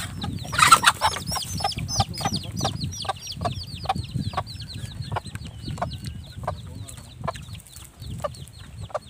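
Chicken clucking in a long run of short calls, about two a second, with a fast high chirping behind it and a louder burst about a second in.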